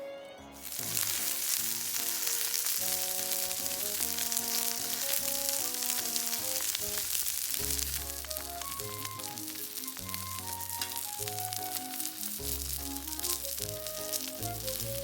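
Food sizzling and crackling in a hot pan, starting suddenly about a second in and going on steadily, with background music underneath.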